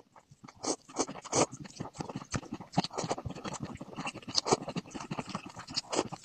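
Noodles being lifted with chopsticks and slurped from a metal pot, heard close up: a dense, irregular run of wet clicks and slurps.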